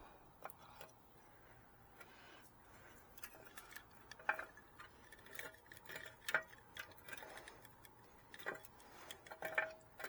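Faint, irregular clicks and taps of wires and a large wire nut being pushed and worked into a cramped electrical box; the nut is too big to fit in the space.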